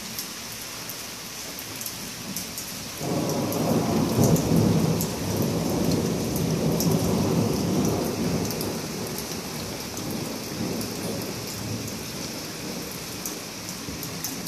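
Thunderstorm: steady heavy rain with scattered drips, and a roll of thunder that breaks in about three seconds in, is loudest a second or two later, and fades slowly over the following several seconds.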